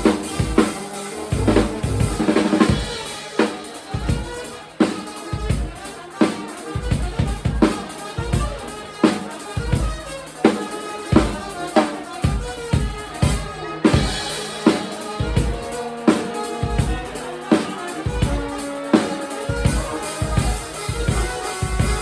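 Live band playing, with a drum kit's kick and snare keeping a steady beat under pitched instruments.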